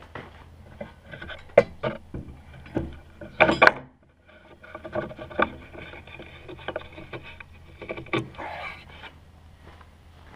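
Wooden boards being handled on a sawhorse workbench: irregular knocks and clatters of wood on wood, loudest about three and a half seconds in, with scraping and rubbing between.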